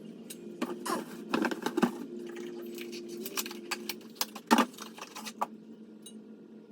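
Irregular clicks, taps and rattles of small metal and plastic parts being handled during headlight bulb installation, with the loudest click about four and a half seconds in, over a steady low hum.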